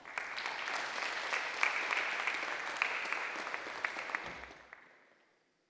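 Audience applauding: many hands clapping at once, holding steady for about four seconds, then dying away over the last second or so.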